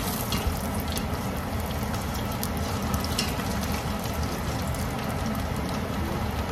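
Battered perilla flower stalks deep-frying in a pot of hot oil: a steady sizzle with a few scattered crackles.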